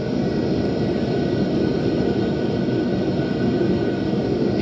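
A garage heater running steadily: an even blowing rush with a faint high hum.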